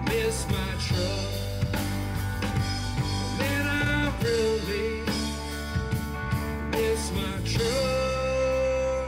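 Live rock band playing an instrumental break: an electric guitar lead with bent, sustained notes over electric bass and a drum kit.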